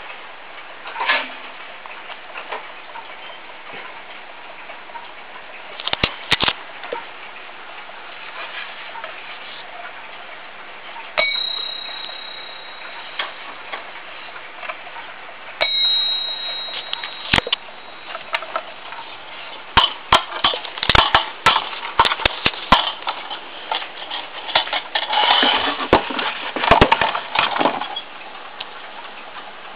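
Small bell of a Kienzle ATO-Mat electronic wall clock struck twice, about five seconds apart, as its hands are turned by hand. Each strike gives a single bright, high chime that rings on for about a second and a half. Later comes a long run of knocks and clatter as the clock is handled, over steady clock ticking.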